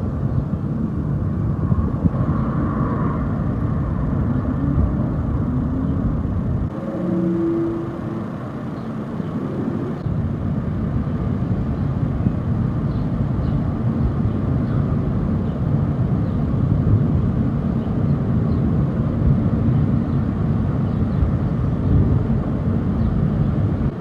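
Wind buffeting a phone microphone over a steady low rumbling drone, with short held tones that sound like a horn or trumpet, one about seven seconds in. These are the unexplained 'trumpet sounds from the sky'.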